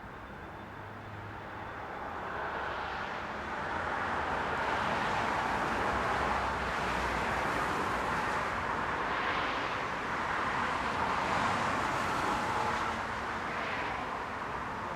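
Busy main-road traffic: several cars driving past one after another, their tyre and engine noise swelling and fading in a continuous wash.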